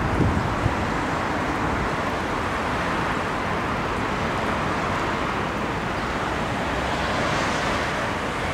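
Steady city road traffic: a continuous wash of passing cars, with a vehicle passing a little louder about seven seconds in.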